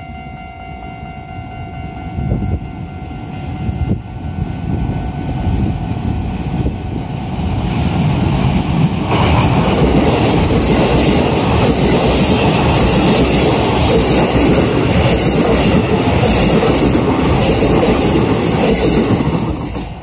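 Level-crossing warning bell ringing steadily as a Keikyu New 1000 series electric train comes up, its running noise swelling. From about nine seconds in, the train passes close by with wheels clacking rhythmically over the rail joints. The noise falls away sharply just before the end.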